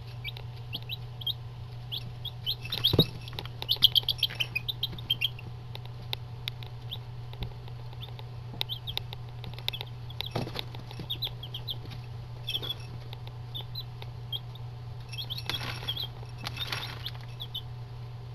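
Eight-day-old chicken chicks peeping in short, high chirps, busiest a few seconds in, with a few bursts of scratching and rustling as they kick through their food and paper bedding. A steady low hum runs underneath.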